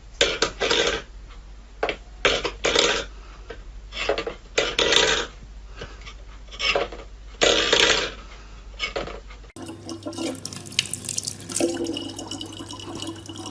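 Water splashing in irregular short bursts, then after a cut about 9.5 s in, water running steadily with a low hum under it.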